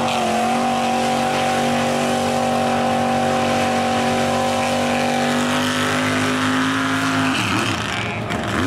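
Mud truck engine held at high, steady revs as the truck plows through a mud hole. Near the end the revs dip and swing quickly up and down.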